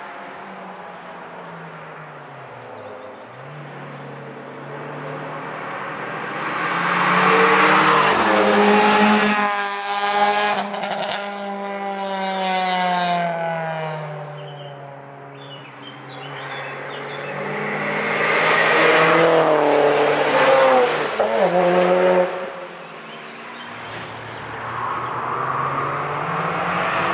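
Cars passing at speed on a race track: engine notes swell to a loud peak and fall in pitch as each car goes by, with two main passes about nine and twenty seconds in and another car coming up near the end.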